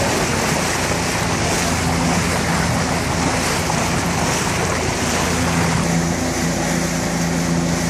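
Boat's motor running steadily with a low hum, over a constant rush of water along the hull and wind. The hum grows stronger about six seconds in.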